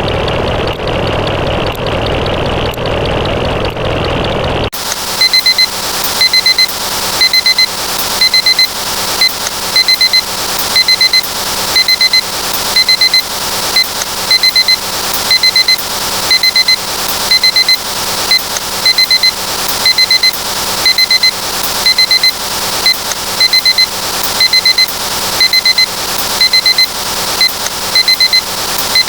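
A dense, continuous clattering noise that cuts off abruptly about five seconds in. It gives way to a digital alarm clock beeping: quick groups of high beeps, repeating a little under once a second.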